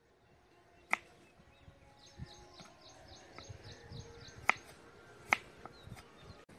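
Kitchen knife cutting carrot sticks on a wooden cutting board: a handful of sharp, separate knocks of the blade on the board at uneven intervals.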